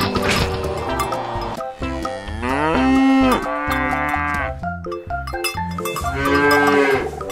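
Cow mooing, several long calls that swell and fall in pitch, the loudest about three seconds in, over background music.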